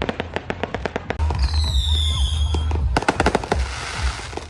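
Fireworks going off: a quick string of sharp bangs, a falling whistle about a second in, then a hissing crackle near the end.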